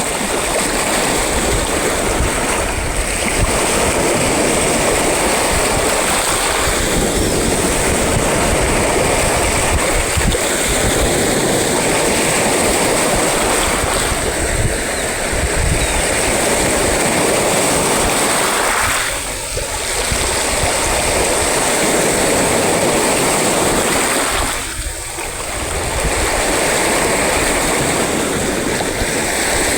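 Sea waves breaking and washing continuously as heavy surf, dipping briefly twice, about two-thirds of the way in and again near the end.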